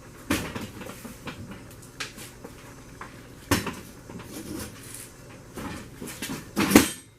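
Folding table being wrestled into place, its frame and legs knocking and clattering in a string of irregular knocks, the loudest just before the end.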